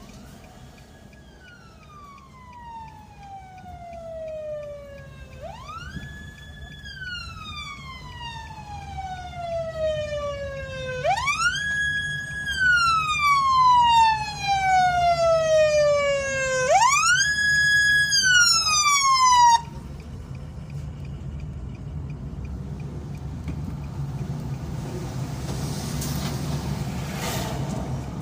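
Emergency vehicle siren wailing, heard from inside a moving car. It runs through four cycles, each rising quickly, holding its pitch for about a second, then falling slowly over about four seconds, and it cuts off abruptly about twenty seconds in. A steady low road rumble runs underneath.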